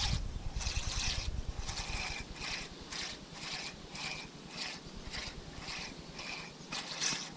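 Spinning reel being cranked during a lure retrieve: a rhythmic rasping whirr about twice a second, one pulse per turn of the handle. Low rumble from wind or handling in the first couple of seconds.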